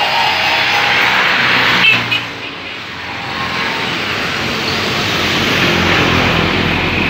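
Street traffic noise: a steady rushing hiss of passing vehicles, with one sharp knock about two seconds in.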